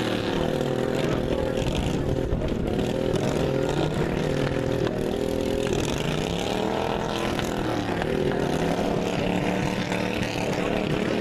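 Racing lawn mower engines running on a dirt track. Several overlap, their pitch rising and falling as they throttle up and back off.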